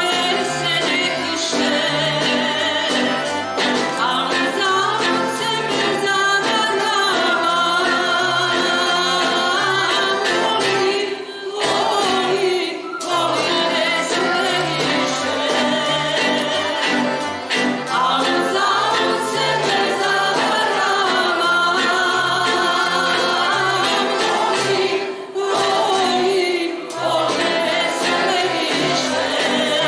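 Live song performance: a woman sings the lead with vibrato, backed by a mixed choir and an ensemble of acoustic guitars and other plucked string instruments with a steady bass line. The music dips briefly twice, between phrases.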